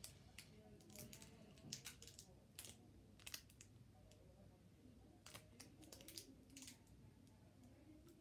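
Near silence broken by scattered faint clicks and taps from fingers handling a plastic Push Pop candy tube.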